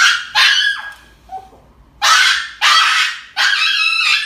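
Small dog screaming in five shrill, honking yelps in a row while being held for an injection: the cries of a frightened dog at a needle.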